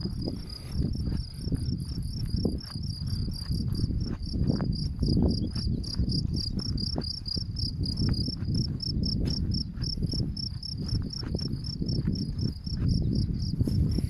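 A cricket chirping in a rapid, even pulse train, about five or six chirps a second, over a louder, uneven low rumble.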